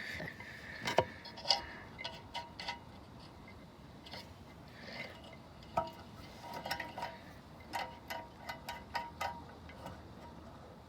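Scattered light clicks and taps of hands handling gear, irregular and quiet, while the crossing bells are being hooked up; no bell rings.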